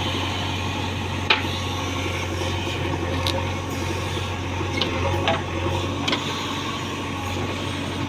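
JCB 3DX backhoe loader's diesel engine running steadily under digging load while the backhoe bucket scrapes through stony red soil, with a few sharp knocks as the bucket strikes stones and earth.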